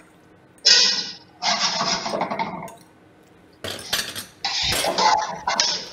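A fork scraping and clinking against a small bowl as peeled fava beans are pushed out of it into a metal pan of spaghetti, in three bursts of clatter.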